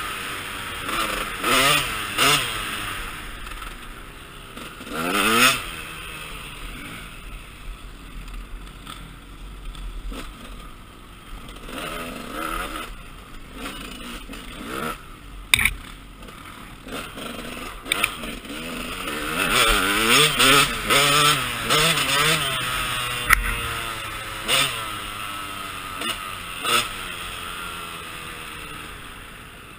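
KTM 200 EXC two-stroke dirt bike engine being ridden, revving up and down again and again as the throttle is opened and closed. A sharp knock about fifteen seconds in.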